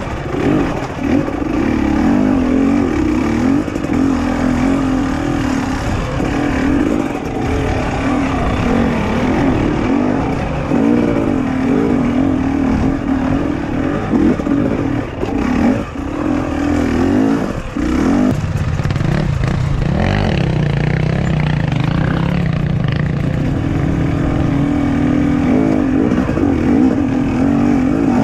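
KTM 250 XC-W two-stroke dirt bike engine worked on and off the throttle, its note constantly rising and falling. The pitch drops lower for a few seconds past the middle, then climbs back up near the end.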